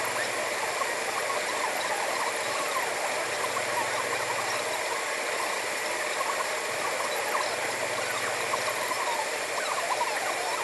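Waves breaking and washing up a sandy beach: a steady surf noise.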